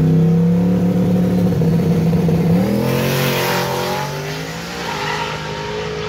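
Turbocharged Camaro drag car's engine held at raised revs on the start line, then climbing in pitch as the car launches about three seconds in. It shifts about a second and a half later, and the sound fades as the car pulls away down the strip.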